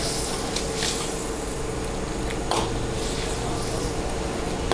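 Food frying in hot oil in a large iron wok: a steady sizzling and bubbling. A few short scrapes and clinks of a steel ladle against the wok, the loudest about two and a half seconds in.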